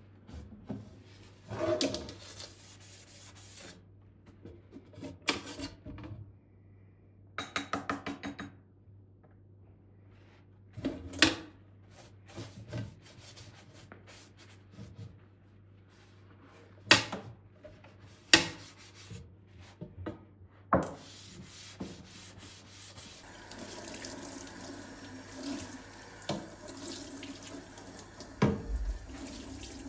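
Scattered knocks and clatters of containers and dishes being handled and set down, with a quick rattling run of strokes once. Roughly the last quarter brings a tap running into a sink.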